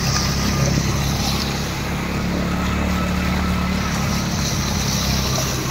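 A motor vehicle's engine running steadily while moving through floodwater on a street, with a hiss of water washing around it.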